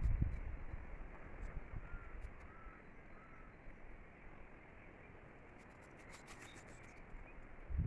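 Wind blowing through an oak forest, with low rumbling gusts on the microphone at the start and again near the end, and a steady rushing between them. A few short, faint bird calls come in the middle.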